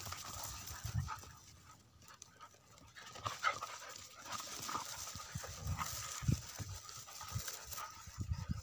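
Several dogs play-fighting: panting and scuffling, with irregular soft knocks that get busier after the first few seconds.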